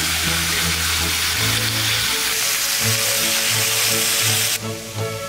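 Thin slices of beef short rib and king oyster mushrooms sizzling on a hot griddle pan, cutting off abruptly near the end. Background music with a steady bass line plays throughout.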